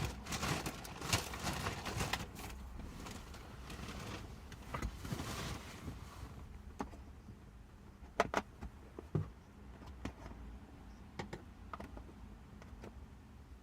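Hands working inside a car seat back: fabric and foam rustling, with sharp clicks and knocks of the rigid plastic seat-back panel. The handling is busy at first and thins out to a few scattered clicks after about six seconds.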